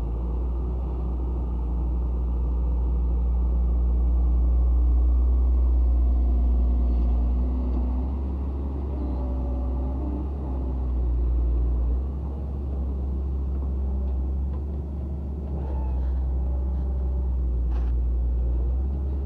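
Heavy diesel machinery running with a steady deep rumble, with a pitch that rises and falls now and then as the engine works.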